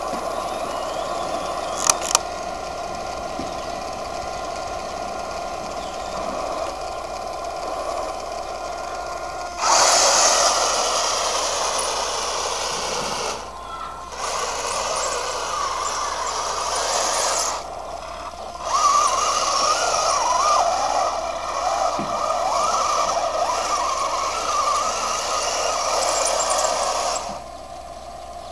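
Radio-controlled model tank: a steady electric hum with a couple of sharp clicks about two seconds in, then, from about ten seconds in, the louder wavering whine of its drive motors and gearboxes as it drives over the grass. The whine stops briefly twice and drops back near the end.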